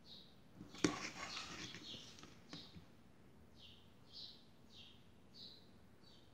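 A small bird chirping in the background: short, slightly falling chirps repeated one to two times a second. About a second in there is a sharp click, the loudest sound, followed by a second or so of rustling handling noise.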